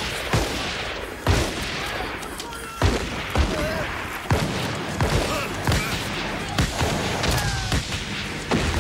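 Battle gunfire: about a dozen sharp rifle shots and blasts at irregular intervals, roughly one every half second to a second, over a rough rumbling background.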